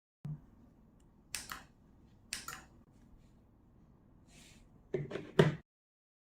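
Small plastic push-buttons being clicked: several sharp press-and-release clicks, mostly in quick pairs, with the loudest near the end, over faint handling noise.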